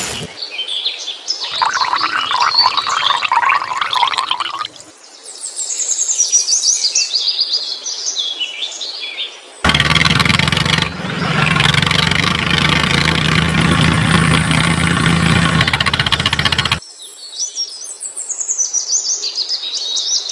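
Birds chirping in quick, high, gliding calls, broken from about ten seconds in by a loud, steady hum with a low held tone that lasts about seven seconds and then stops suddenly.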